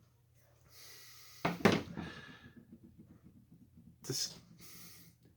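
A man's breathing: an intake of breath, then a short voiced sigh trailing off, and another breath near the end.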